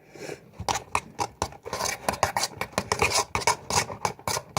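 Sticky glue-and-shaving-foam slime mixture being stirred in a bowl: rapid, irregular scraping and clicking as it thickens.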